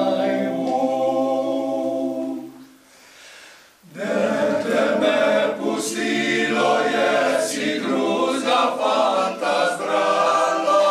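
Men's choir singing a cappella. A held chord fades out about two and a half seconds in, and a new phrase begins about a second later.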